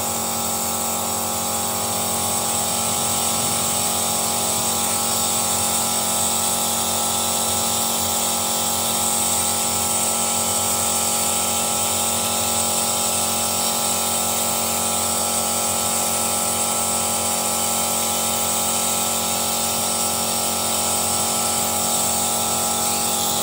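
Steady machine whine and hum with a constant hiss of air, unchanging throughout, from an engine carbon-cleaning setup at work, its hanging cleaner canister driven by compressed air.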